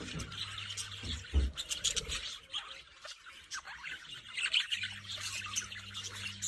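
Green parrots chirping and chattering in quick, short calls, with a few low thumps about a second in.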